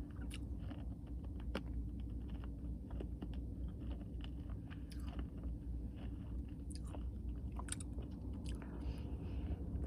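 A person chewing ice cream with crunchy toffee and cookie pieces, with irregular small crunches and clicks, over a steady low hum.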